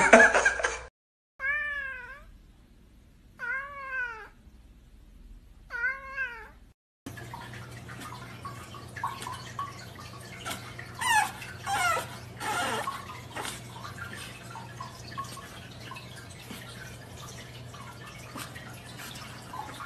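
A cat meowing three times, about two seconds apart, each meow rising and then falling in pitch. After that comes a steady low hum with a few short high cries.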